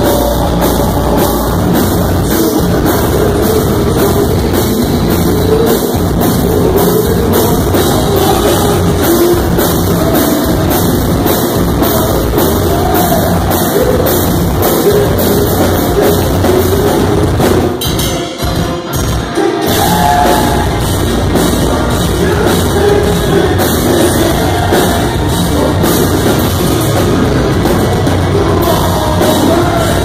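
Heavy rock band playing live and loud: distorted electric guitars and a drum kit driving a heavy song. The low end drops out briefly about eighteen seconds in, then the full band comes back.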